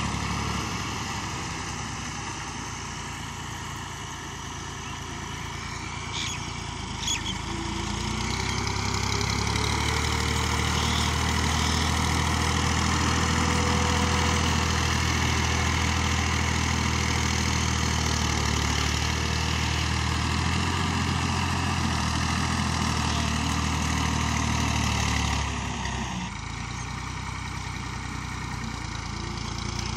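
Massey Ferguson 240 tractor's three-cylinder diesel engine running steadily while working a rear blade through soil. It grows louder about a quarter of the way in as the tractor comes close, and drops off again near the end as it moves away.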